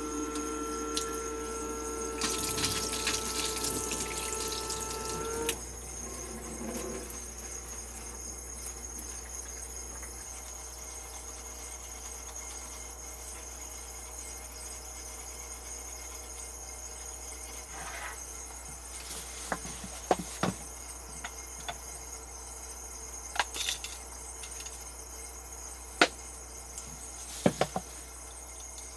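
Tap water running into a small stainless-steel sink while the camper's water pump hums steadily; both stop together about five seconds in. After that only a faint steady high tone remains, with a few small clicks and knocks near the end.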